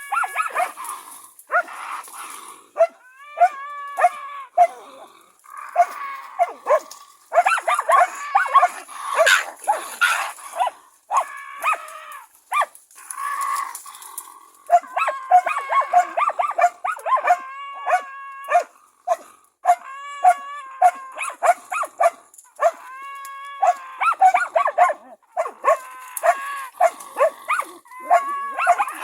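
Karelo-Finnish laikas barking in fast runs of sharp barks, with a short lull partway through: hunting dogs baying at a raccoon dog they are working.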